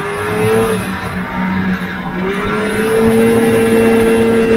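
Vintage two-stroke snowmobile engine under throttle. The revs climb, ease off about a second in, then climb again and hold high and steady.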